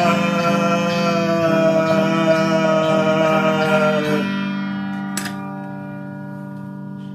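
Ending of a song with guitar: a long held note over strummed guitar stops about four seconds in, and the last guitar chord then rings on, slowly fading. A single sharp click about five seconds in.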